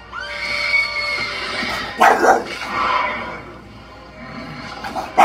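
An English bulldog barking at a television, with the film's soundtrack playing from the TV. A long high-pitched cry fills the first two seconds, then short loud barks come about two seconds in, around three seconds and again at the very end.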